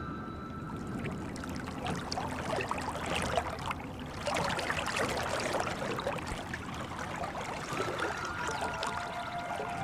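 Water pouring from two pipes into a full wooden tub: a steady splashing and trickling, busiest around the middle.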